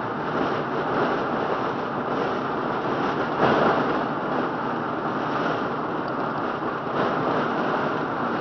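Steady tyre and wind noise of a moving car, heard through a dashboard camera's microphone inside the cabin, with a brief louder swell about three and a half seconds in.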